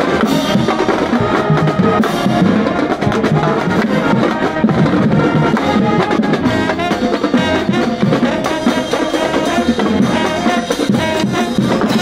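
High school marching band playing, brass and drums together at a steady, loud level.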